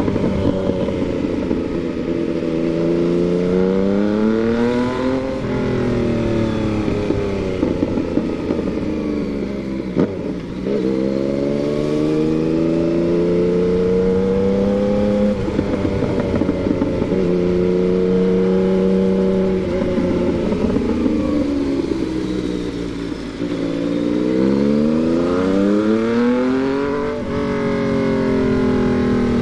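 Yamaha MT-09 inline three-cylinder motorcycle engine under way, with its pitch climbing and dropping back several times as the rider accelerates and eases off or shifts. It holds a steady pitch for a few seconds mid-way, dips, then revs up again.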